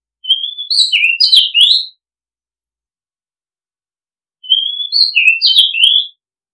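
Oriental magpie-robin singing: two near-identical whistled phrases of rising and falling notes, each about a second and a half long, a few seconds apart.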